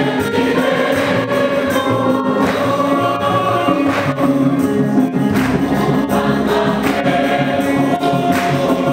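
A church congregation and choir singing a gospel hymn together, with hand claps.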